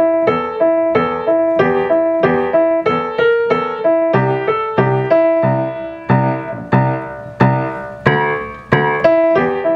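Grand piano played with both hands at a steady moderate pulse: the right hand's melody notes connected, the left hand's notes short and detached (staccato). Deeper bass notes come in about four seconds in.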